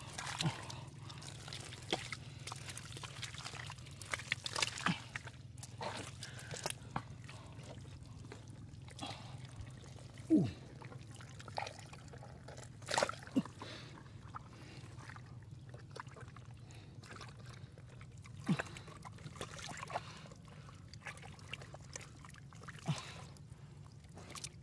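Wet mud and muddy water being worked by hand: squelching, sloshing and trickling, with scattered sharp clicks over a steady low hum.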